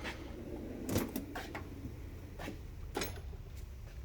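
A steel tool chest drawer sliding open on its runners, with several sharp clicks and knocks of metal tools inside it, over a low steady hum.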